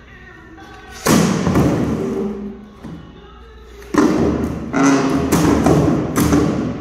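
Sledgehammer smashing into a bathtub: one heavy hit about a second in that rings on for over a second, then several more hits in quick succession from about four seconds in.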